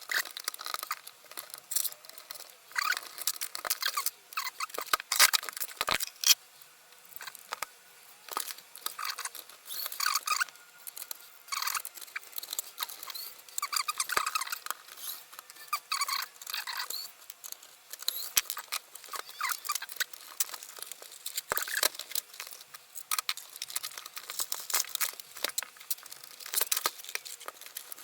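Hands scratching, scraping and picking at a Blu-ray player's plastic casing while trying to open it, in irregular bursts with sharp clicks.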